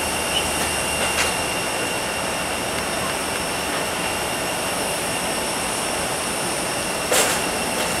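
Steady jet whine and rush from an airliner standing at the gate, with a steady high tone over it. A short burst of hiss comes near the end.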